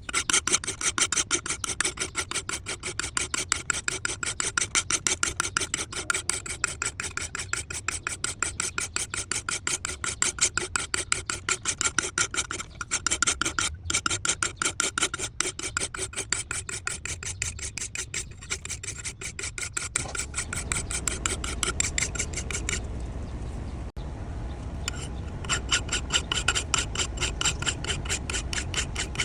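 Hand file rasping steadily back and forth on the steel of a vintage Japanese masakari axe head, about three ringing strokes a second. The strokes stop for a few seconds, leaving a steady low noise, and then pick up again.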